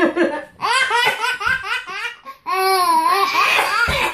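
Toddler laughing in quick bursts of short laugh pulses, then a longer drawn-out laugh in the second half.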